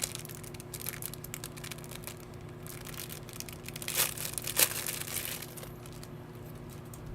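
Packaging crinkling and tearing as a lanyard is unwrapped, with two louder sharp crackles about four seconds in and again half a second later.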